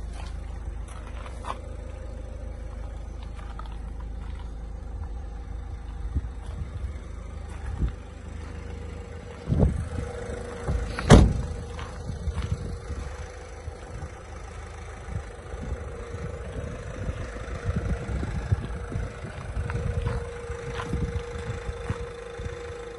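Citroen Berlingo van's 1.6 BlueHDi diesel engine idling steadily, with scattered knocks and a loud thump about eleven seconds in.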